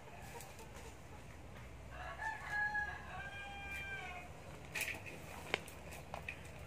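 A rooster crows once, a call of about two seconds. It is followed by a few sharp clicks and rustles from hands working mushroom substrate in a metal basin.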